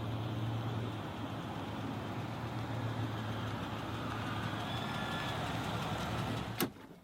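Steady low engine hum of a running vehicle, ending abruptly with a sharp click near the end.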